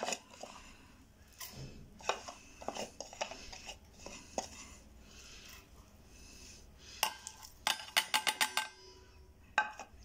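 Spoon scraping and clinking against a stainless steel feeding bowl as crumbly egg-and-rusk mash is spooned into it, with a quick run of clinks about seven seconds in.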